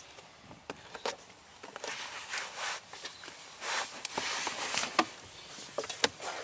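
Plastic lower dash trim panel of a 2003 Toyota 4Runner being worked loose by hand: scattered clicks and plastic rubbing and scraping, with two sharp snaps of its retaining clips about five and six seconds in.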